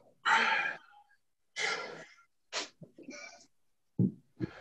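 A man breathing hard through a kettlebell exercise: about five short, forceful exhales a second or so apart.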